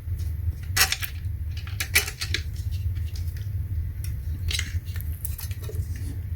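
Small mounting hardware (a washer and fastener for a solar panel bracket) clicking and clinking a few scattered times as it is handled and fitted, over a steady low hum.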